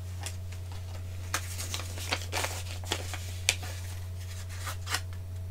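Paper rustling and light clicks of small items being handled, in scattered short bursts over a steady low hum.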